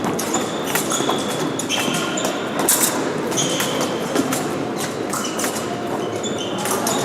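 Épée bout in a sports hall: blades clicking and clattering against each other, feet stamping on the piste, and fencing shoes giving short high squeaks throughout.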